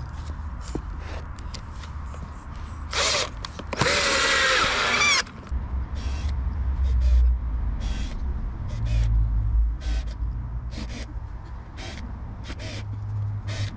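Makita cordless drill-driver driving screws into wooden formwork boards: a short spin of the motor, then a longer run of about a second and a half that rises in pitch. After it come a series of short knocks and clicks.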